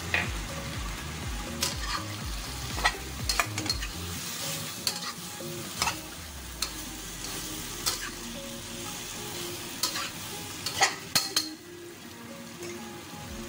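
Chicken feet stir-frying in a wok: a steady frying sizzle, with a spatula scraping and knocking against the wok every second or so. A quick run of louder knocks comes near the end.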